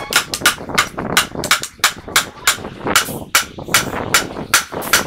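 Steel hand hammer striking a punch held against a truck's wheel hub, a quick run of sharp metal-on-metal blows at about three a second, each with a short ring.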